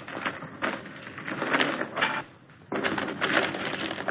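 Newspaper rustling and crackling as it is shaken open and folded, in two bouts with a short lull a little past two seconds in, on a dull early sound-film soundtrack.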